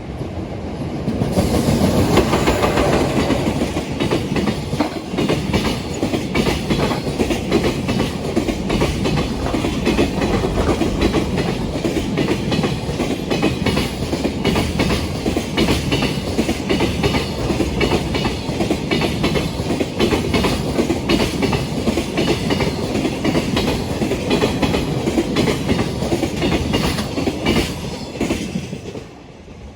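Freight train passing at close range, its wagon wheels clattering in a steady rhythm over the rail joints. It comes up suddenly about a second and a half in and dies away near the end.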